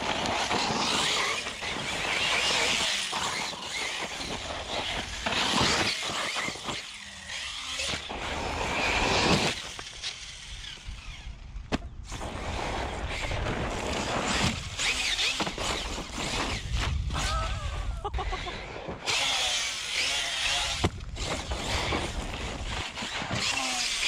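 Arrma Talion 6s RC car's stock BLX brushless motor whining in bursts that rise and fall as it is driven hard, with its tyres hissing and crunching over hard-pack dirt and gravel.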